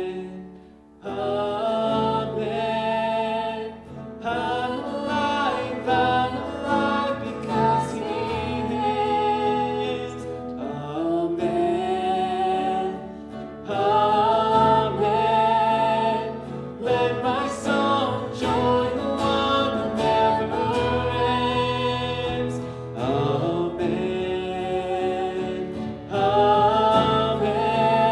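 Live worship band playing: female and male voices singing over acoustic guitar, electric bass and drums, with a brief pause about a second in before the music resumes.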